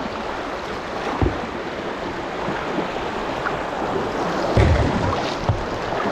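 River water rushing past a kayak as it runs down a shallow riffle, with a few low thumps, one about a second in and several near the end.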